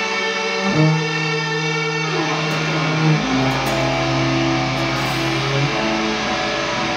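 Improvised electric guitar and bass music: long held notes that change pitch about a second in and again around three seconds in.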